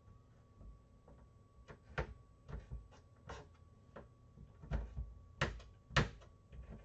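Scattered knocks and clatter of food preparation on a kitchen counter, a knife and potato pieces knocking on a chopping board, irregular and getting louder in the second half, with two sharp knocks near the end. A faint steady high tone hums underneath.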